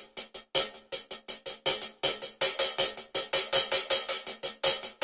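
Percussion-only song intro: a rhythmic beat of drum and cymbal hits, a few strokes a second, bright and sharp.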